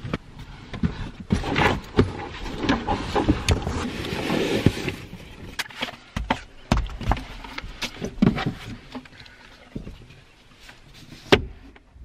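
Camera gear handled inside a car: a large telephoto lens in a fabric camouflage cover is reached for and moved about, with rustling, knocks and clicks, a denser rustle about four seconds in, and a sharp click near the end.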